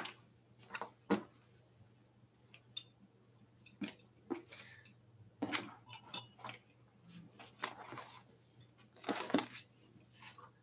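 Scattered light metal and plastic clinks and rattles of fender hardware and a small tool being handled while a front fender is fitted to an e-bike's fork, a dozen or so short clicks at uneven intervals. A faint steady hum runs underneath.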